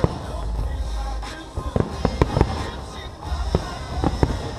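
Aerial fireworks going off in an irregular string of sharp bangs, several in quick succession about two seconds in and more near the end.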